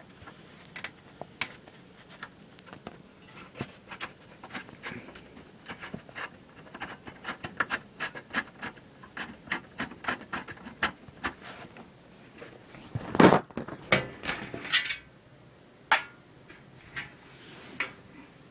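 Hands working the rear screw and sheet-metal case of a Dell PowerEdge 850 1U rack server: a long run of small clicks and scrapes, then one loud knock about 13 seconds in as the top cover comes off, followed by a few more clicks.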